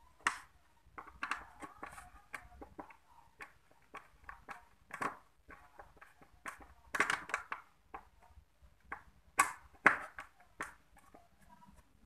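A screwdriver working on a motorcycle's plastic front shield and parking-light housing: irregular small clicks, knocks and scrapes of tool and screws against hard plastic. The loudest clicks come a little past halfway and again about four-fifths through.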